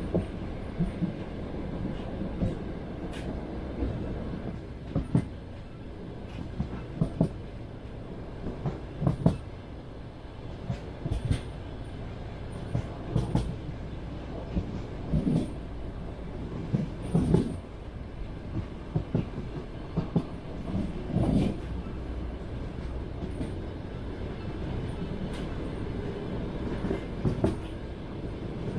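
Train wheels clattering over rail joints, heard from inside a moving passenger carriage: a steady low rumble broken by irregular sharp knocks, often in quick pairs.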